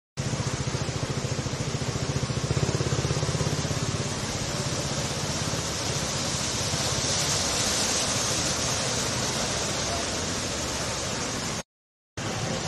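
Cars driving through floodwater on a street: a steady rush of water sprayed up by the tyres, with a low engine hum in the first few seconds. The sound breaks off for a moment near the end.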